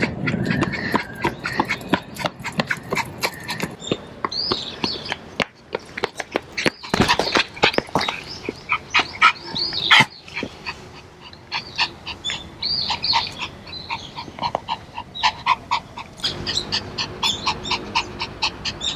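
Shih Tzu puppy panting fast and hard after sprinting up a slope, close to the microphone, a quick run of short breaths. Small birds chirp now and then.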